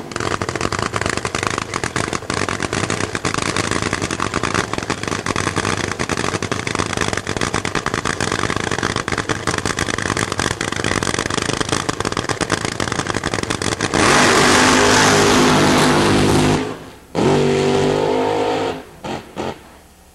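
Supercharged nitro-burning V8 of a Top Fuel-class funny car idling with a loud, rough, rapid rattle. About fourteen seconds in it goes to full throttle for the launch and gets much louder. A couple of seconds later it cuts out briefly, comes back, then gives a few short blips before falling away.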